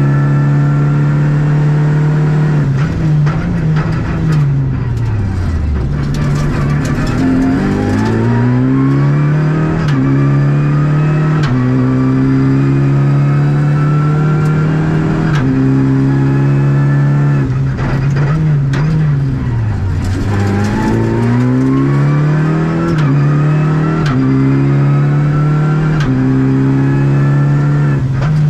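Renault Clio Rally5's turbocharged 1.3-litre four-cylinder engine, heard from inside the cabin, running hard at high revs. Its pitch falls away steeply twice, a few seconds in and again about two-thirds through, then climbs back up in steps through the gears.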